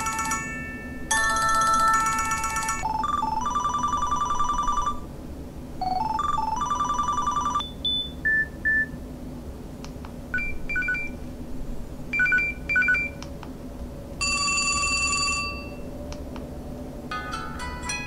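An LG 440G flip phone's small speaker playing its built-in ringtones and alert sounds one after another as the list is scrolled. Short electronic jingles and beep patterns, each lasting a second or two, with short gaps between them.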